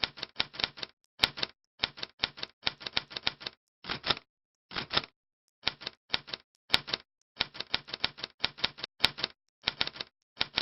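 Typewriter being typed on: quick runs of sharp key strikes, several at a time, broken by short pauses between words.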